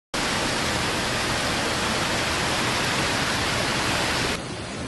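Fast-flowing muddy floodwater rushing across a street after heavy rain, heard as a loud, steady hiss of water. About four and a half seconds in, it suddenly becomes quieter and duller.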